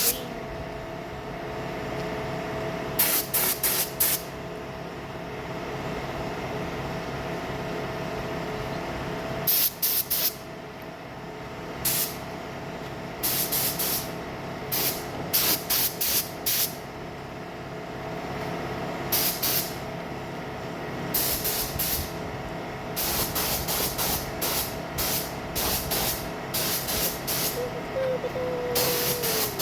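Paint spray gun spraying in short hissing bursts, many quick trigger pulls in clusters, over a steady machine hum.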